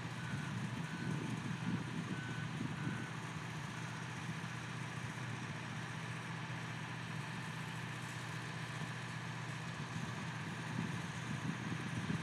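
Steady low engine hum from ground-support equipment beside a parked aircraft being refuelled. A handful of short electronic beeps sound at uneven gaps in the first three seconds.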